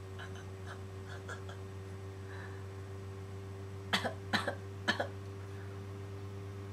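A man coughing, a quick fit of several short coughs in about a second, roughly four seconds in, while chewing a piece of raw ginger.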